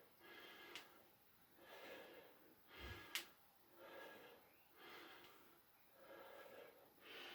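Faint, rhythmic breathing during calf raises in a low squat, roughly one breath a second, with a light click about three seconds in.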